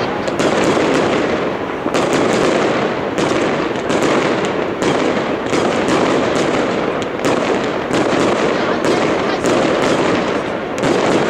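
Aerial fireworks display: a continuous barrage of rapid, overlapping shell bursts and cracks, several bangs a second over a dense rumble, with no pause.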